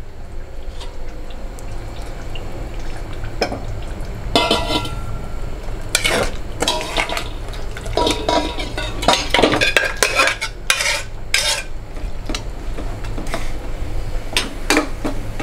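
A metal spatula scraping and knocking against a pressure cooker and a steel serving bowl as thick curry is tipped and scraped from one into the other. It makes a run of scrapes and clanks, some ringing briefly, busiest from about four to twelve seconds in, over a low steady hum.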